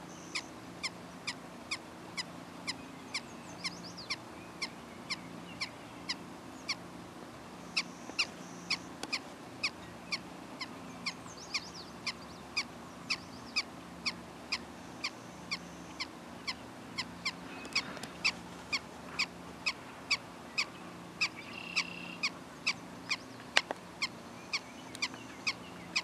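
Prairie dog barking over and over in short, sharp, evenly spaced calls, about two or three a second.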